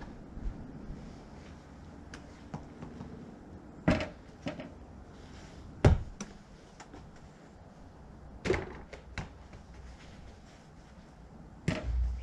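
Small rubber and foam play balls thrown one after another, hitting their targets with a series of sharp knocks and thuds, about half a dozen spread over the stretch; the loudest comes about six seconds in.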